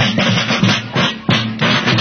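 Several marching field drums beaten together in a steady cadence, about three strokes a second.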